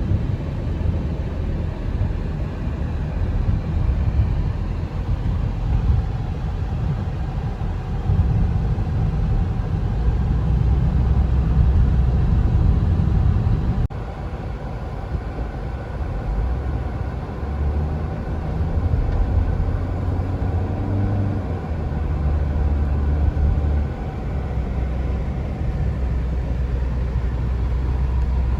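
Steady low rumble of road and engine noise heard inside a moving car. The level drops a little at a sudden break about halfway through.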